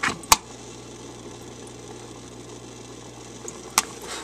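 Aquarium filter running with a steady low hum and whirr from its spinning impeller, a noise that shouldn't be there, which the owner blames on something wrong with the impeller. Sharp knocks of the filter's plastic being touched just after the start and near the end, the loudest about a third of a second in.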